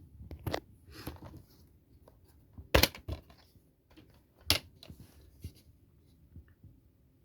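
Hands handling a DVD case and its packaging: rustling, with scattered plastic clicks and two sharp, loud snaps, about three seconds in and again a second and a half later.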